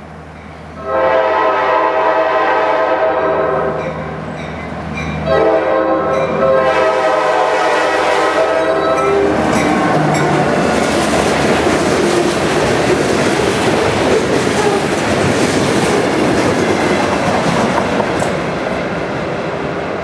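Diesel locomotive horn sounding two long blasts as a freight train approaches, then the train passing close by with wheels clattering over the rails.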